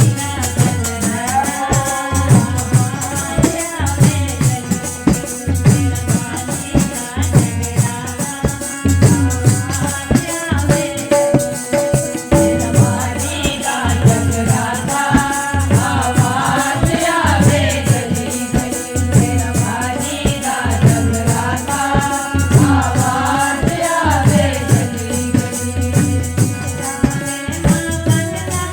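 Devotional Hindi bhajan in praise of the Mother goddess: a voice singing over steady, rhythmic hand percussion with a rattling, shaken sound and drum beats.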